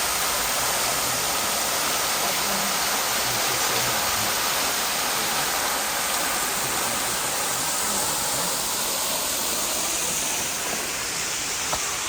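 Waterfall: falling water making a steady, loud rush that does not change.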